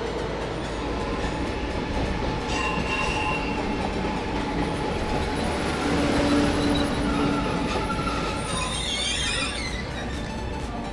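Train moving along the platform track: a steady rumble with held whining tones that grows loudest about halfway through, then wavering wheel squeal on the rails near the end.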